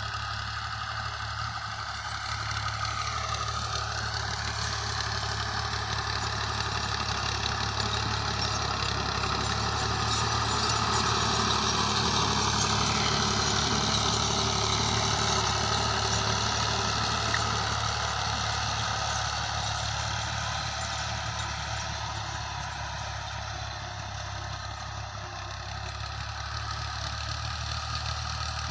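Tractor engine running steadily under load; it grows louder toward the middle and eases off again later.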